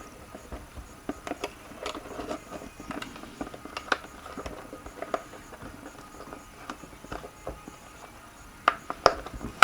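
Scattered light clicks and taps of small plastic and metal RC-truck parts being handled, irregular, with a few sharper knocks about four seconds in and twice near the end.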